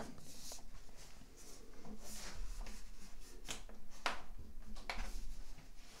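Aluminium top case of a 2007 MacBook Pro being pressed down around its edges, with rubbing of hands on the metal and several soft clicks as its clips snap into place.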